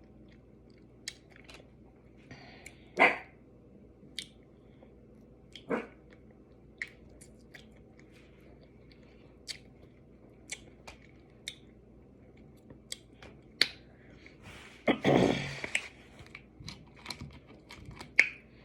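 Crab legs being eaten: scattered sharp cracks and clicks of shell with chewing. Several louder sudden bangs stand out, about 3, 6 and 13.5 seconds in, which the eater takes for gunshots nearby, and a longer noisy burst comes about 15 seconds in.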